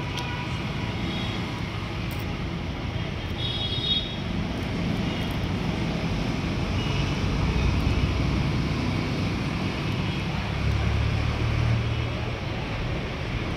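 Steady low rumble of background noise, with a few faint short scratches.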